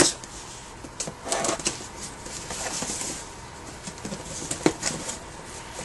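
Cardboard shipping box being handled and opened by hand: rustling and scraping, with a few light knocks and clicks.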